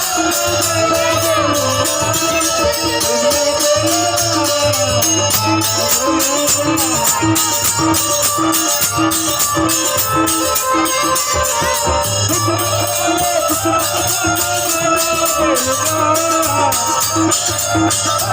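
Instrumental interlude of a Bhojpuri sohar folk song: a wavering melody over a steady bass, with a fast, even jingling percussion beat.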